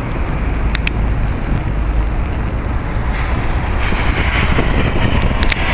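Wind buffeting the microphone: a loud, gusting low rumble with two short clicks under a second in, and a hiss that swells up from about three seconds in.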